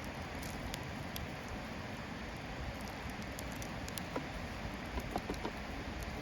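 Wood fire crackling in a fire pit made from an 18-litre square metal can, with scattered sharp pops and ticks over the steady rush of a river.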